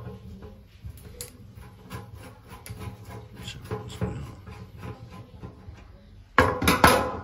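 Flat-blade screwdriver turning and scraping in the screws of a generator fuel-tank gauge, a run of small scrapes and clicks, with a louder rasping noise lasting under a second near the end.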